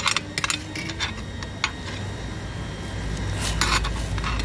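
Wooden chopsticks clicking and tapping against a ceramic bowl while fried eggs are settled onto rice: a few light clicks in the first second and a half, then a short rustling scrape about three and a half seconds in, over a steady low hum.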